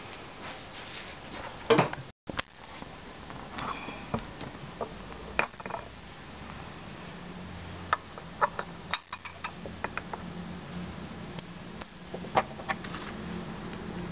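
Scattered light clicks and taps of hands handling a plastic wheel and its parts on a plastic bed panel. The sound drops out for a moment about two seconds in, and a faint low hum sits underneath in the second half.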